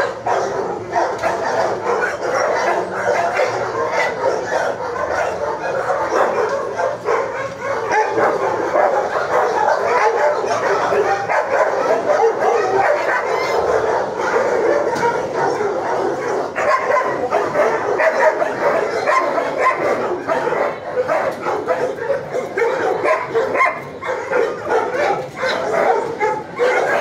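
Dogs in a shelter kennel barking and yelping in a continuous din.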